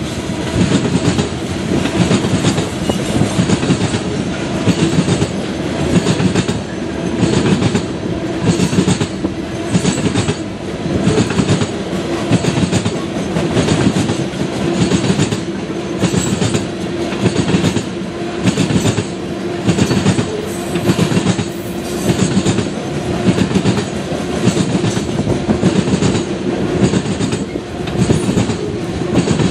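CSX freight train rolling past, its car wheels clicking over the rail joints in a steady repeating rhythm.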